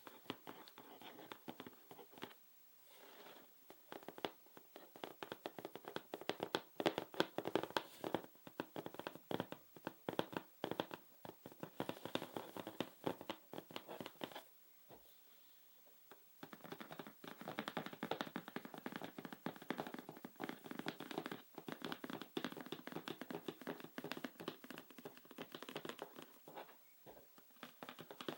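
Hands tapping and scratching on small objects in dense runs of soft clicks, pausing briefly twice, once about halfway through.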